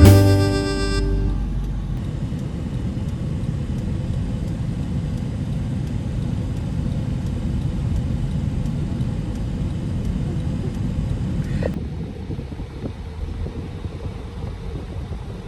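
Steady low rumble of a moving vehicle, with a brief click about two-thirds of the way through, after which the sound is duller. The last notes of background music fade out in the first second.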